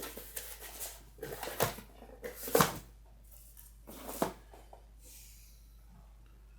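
Rustling and handling noises of rummaging through a phone screen repair kit and its packaging: a string of irregular rustles and scrapes, the loudest about two and a half seconds in, stopping after about four seconds.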